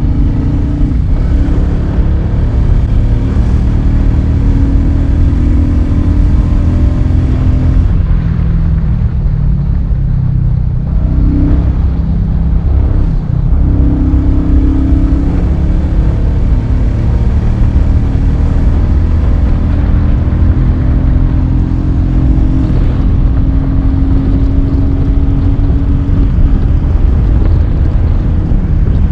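Royal Enfield Meteor 350's single-cylinder engine running through its stock exhaust, heard from the saddle while riding. It is a steady, loud note whose engine speed rises and falls a few times along the way.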